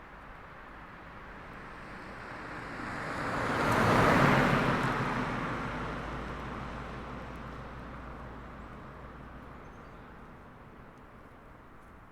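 An SUV driving past: its engine and tyre noise build up, are loudest about four seconds in, then fade slowly as it moves away.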